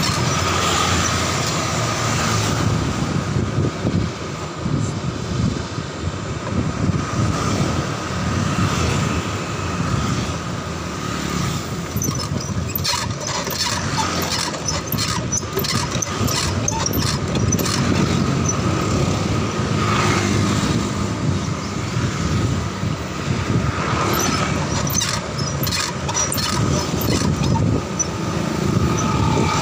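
Riding noise of a bicycle picked up at its handlebars: a steady low rumble of tyres and wind, with bouts of rattling clicks from the bike and its wire front basket, especially around the middle. Street traffic with motorbikes runs underneath.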